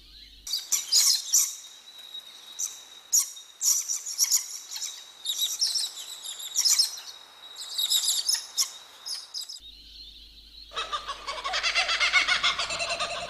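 Songbirds chirping and twittering in quick, high calls for about nine seconds, cut off abruptly. Near the end a louder, lower and harsher bird call begins.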